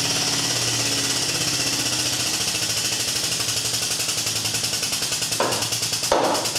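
Air-over-hydraulic pump of a frame-straightening rack running: a rapid, even pneumatic chatter with a strong hiss, starting abruptly. It is driving the hydraulic ram that pulls a damaged strut tower the last millimetre into place.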